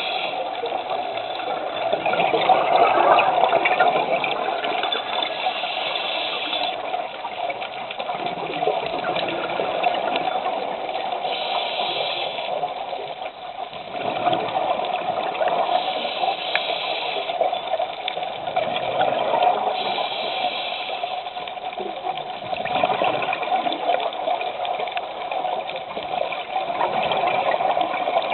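Scuba diver breathing through a regulator underwater: a hiss on each inhale and a rush of bubbles on each exhale, in a slow repeating cycle.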